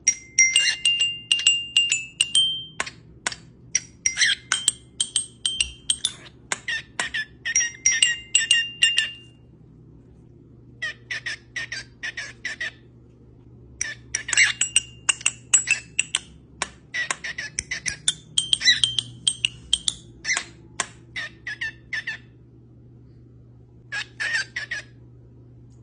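A parrot making rapid runs of sharp clicks and short high chirps and whistles in bursts, with a few short pauses, over a steady low background hum.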